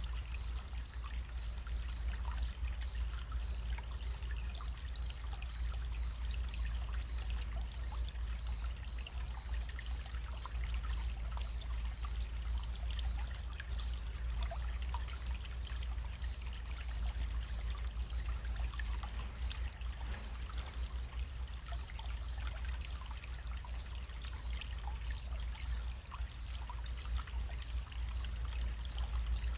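Small running stream: steady trickling water with many tiny splashes, over a constant low rumble.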